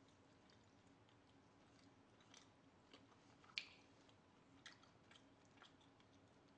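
Faint chewing of a mouthful of boiled duck meat: a few soft, wet mouth clicks and smacks, the sharpest a little past halfway.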